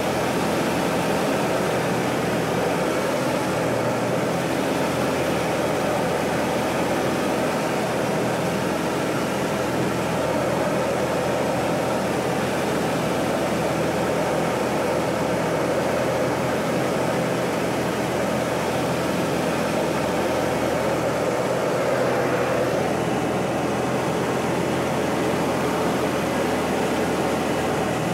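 Pitts biplane's engine and propeller droning steadily in flight, with rushing wind, heard from inside the cockpit.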